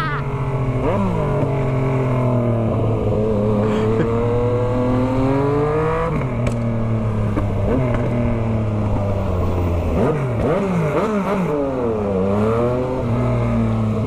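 Yamaha MT-09's three-cylinder engine through a straight-piped 3-into-1 full exhaust, under way. The note climbs steadily in pitch for several seconds and drops back about six seconds in. It then holds a steady note before a run of quick rises and falls near the end.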